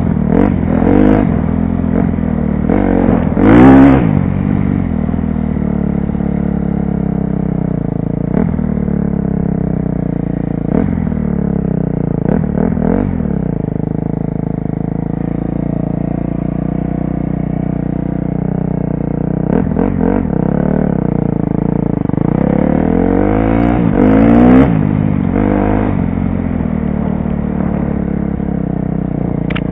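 2012 KTM 250 SX-F's single-cylinder four-stroke engine under way, revs rising and falling with the throttle and gear changes. The loudest rev comes a few seconds in, with another climb of revs near the end and steadier running in between. It is heard from a helmet-mounted camera.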